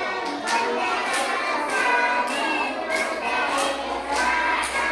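A group of young children's voices singing together, several pitches overlapping.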